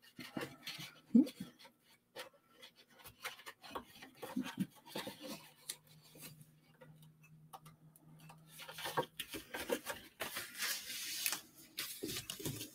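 Paper snips cutting cardstock in short, scattered snips, with the card rustling and sliding as it is handled.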